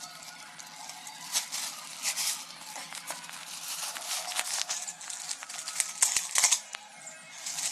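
Hands handling the packaging and parts of a dumbbell set: rustling and crinkling with scattered sharp clicks and knocks, loudest about six seconds in.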